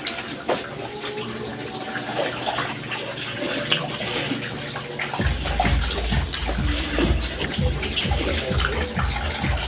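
Close-miked wet chewing and lip-smacking of a person eating rice and fish by hand, with small clicks of fingers and food. About five seconds in, low rhythmic thuds about three a second join in.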